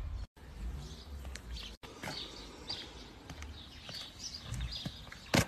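Outdoor street ambience: small birds chirping here and there over a low rumble. A short, loud burst of noise comes near the end.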